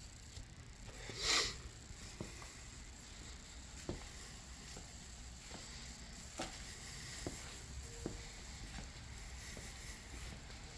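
Crypto mining rigs' fans running with a steady low hum and hiss, with scattered light clicks and one brief louder swish about a second in.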